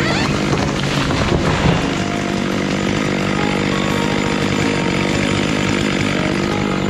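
Stihl two-stroke chainsaw running steadily at a constant pitch, with a brief louder spike about a second and a half in.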